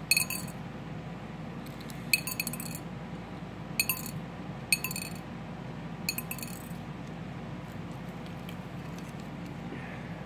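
Oyster shells clinking against a hard ceramic bowl as hands pry an oyster open: about five sharp, ringing clinks, some in short clusters, over a steady low hum.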